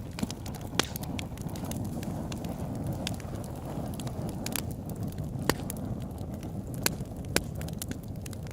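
Campfire crackling: a steady low rumble of burning wood with irregular sharp pops and snaps, several of them louder than the rest.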